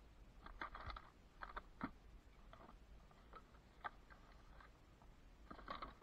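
Faint, irregular clicks and light knocks of small metal hardware being handled while searching for washers.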